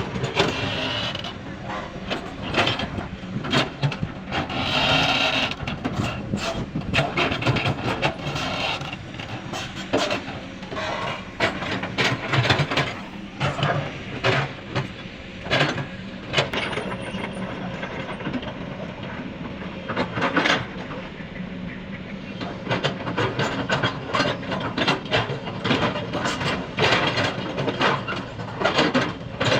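Excavator's diesel engine running steadily while it digs, with repeated clanks and knocks of the steel bucket and machine all through.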